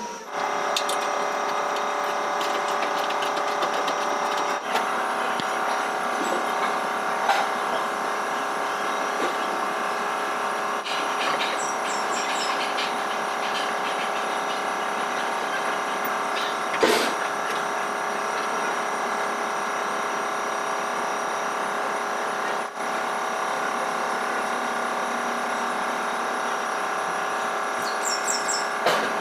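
A steady machine drone made of several held tones, with a few sharp knocks on metal over it.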